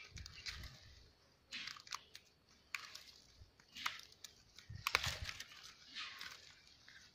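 A hand pushing among the stems, twigs and dry leaves of a gardenia clump: irregular rustles and crackles about once a second, with a few low bumps.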